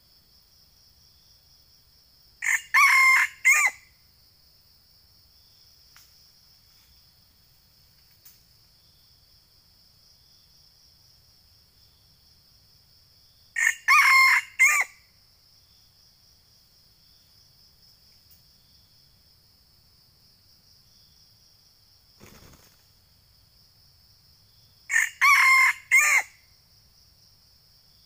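Red junglefowl rooster crowing three times, about eleven seconds apart, each crow lasting about a second. A steady high insect drone runs underneath.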